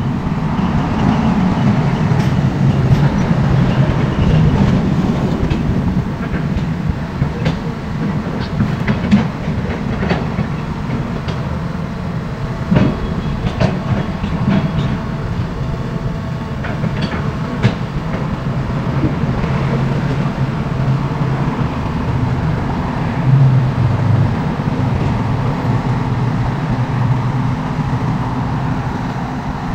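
SANY tracked excavator's diesel engine running steadily under load, with scattered metallic clanks and knocks from its tracks and bucket. The engine note swells briefly about three-quarters of the way through.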